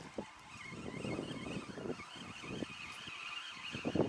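Fishing reel being cranked fast as a hooked largemouth bass is reeled in, a wavering whine that rises and falls with the cranking, with irregular low thumps from wind on the microphone and water, loudest near the end.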